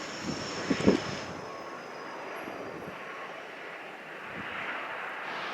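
Airliner on landing approach passing low overhead: steady engine noise with a high whine that drops slightly in pitch and fades after about a second. A couple of brief low thumps come about a second in.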